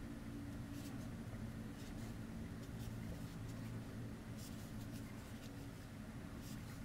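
Faint scratching and soft ticks of a crochet hook working yarn through stitches, a handful of them scattered through, over a steady low hum.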